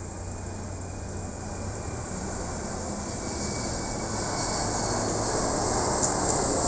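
Jet noise from a Boeing 737-400 freighter's CFM56 turbofan engines on landing approach, growing steadily louder as the aircraft comes overhead, with a faint thin whine on top.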